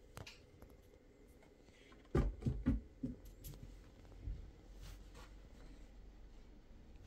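A kitten jumping down from a dresser: a quick cluster of three or four dull thumps as it lands, about two seconds in, then quieter faint clicks and patter as it moves about.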